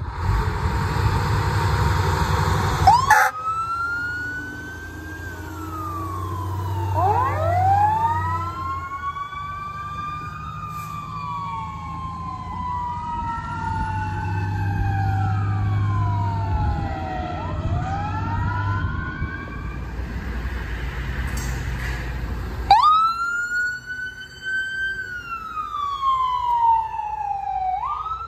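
Fire engine sirens wailing as it pulls away, two or more sirens sweeping up and down over each other, with the diesel engine running underneath. About three seconds in, heavy engine noise gives way to the first siren. Near the end another siren starts, an ambulance's, wailing high and falling slowly.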